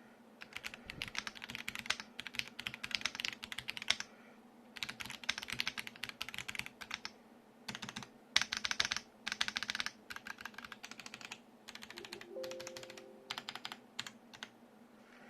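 Royal Kludge M75 mechanical keyboard with fast silver switches being typed on in quick runs of keystrokes, with brief pauses between the runs.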